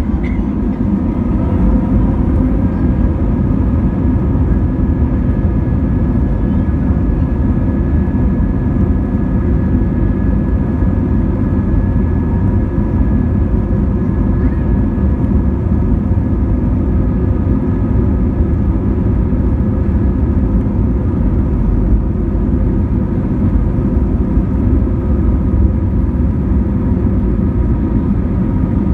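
Airbus A320neo jet engines and runway rumble during the takeoff roll, heard inside the cabin: a loud, steady deep roar with a few faint whining tones over it. It builds slightly in the first couple of seconds.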